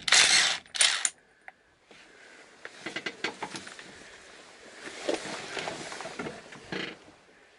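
Cordless impact wrench running in two short loud bursts in the first second, driving a socket on a truck's steering-wheel nut. Quieter scattered metallic clinks and handling noise follow.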